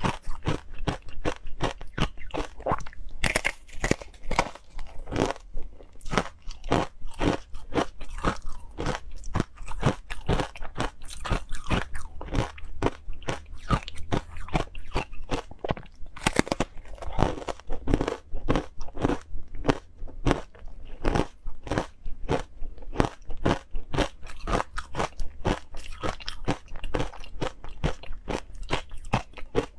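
Biting and chewing hard frozen green powdery ice close to the microphone: a dense run of crisp crunches, several a second.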